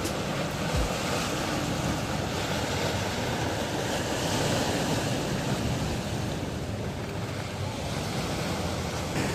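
Sea waves washing against a rocky shore, a steady surf noise with wind buffeting the microphone, swelling a little about halfway through.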